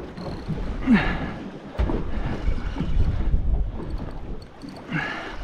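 Wind buffeting the microphone and water against a small boat, a low gusting rumble. A short falling pitched sound comes about a second in, and another brief one near the end.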